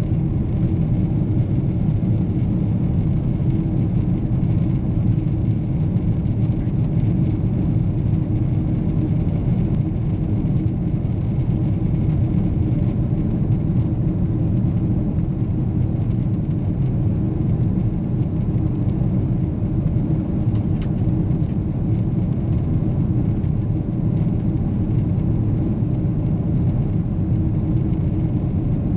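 Steady rumble of a Boeing 777's jet engines, with a constant low hum running through it.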